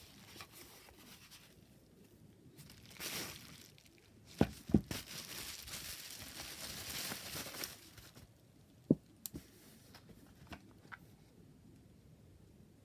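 Packaging being unwrapped by hand: rustling, crinkling and tearing in swells, with a couple of sharp knocks about four and a half seconds in and another near nine seconds, then a few faint ticks.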